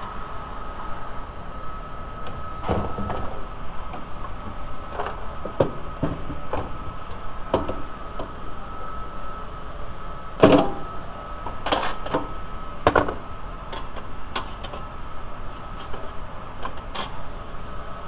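Metal clicks and clanks of pliers working at the pivot of a steel windshield wiper linkage, the sharpest knock about halfway through and a few more after it, over a steady high hum.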